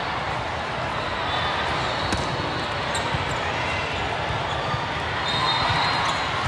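Game noise on a court: a steady din of crowd and play with a ball bouncing, and short high squeaks near the end.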